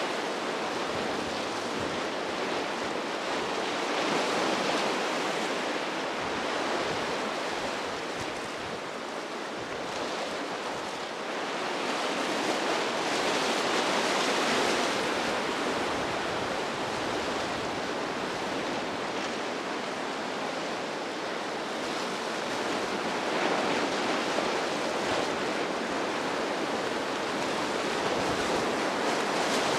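Ocean surf: a steady rushing of breaking waves that swells and eases every several seconds.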